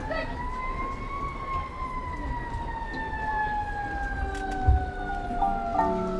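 A siren wail: one long tone that rises for about a second and then slowly falls. Held low chords and a few mallet-percussion notes come in under it near the end.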